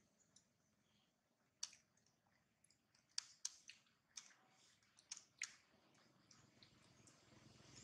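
Faint, irregular wet mouth clicks and smacks from a long-tailed macaque mother and her nursing baby, about a dozen in the middle few seconds, with near silence around them.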